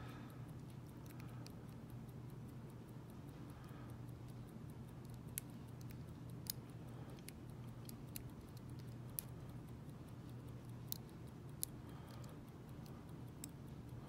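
Faint, irregular ticks and clicks of a lock pick working the pins of a five-pin, spool-pinned American padlock under tension, with a handful of sharper clicks through the middle, over a low steady hum.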